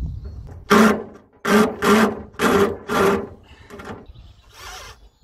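Cordless drill run in about five short bursts in quick succession, then once more faintly, drilling out the rivets in an aluminium lorry-body panel.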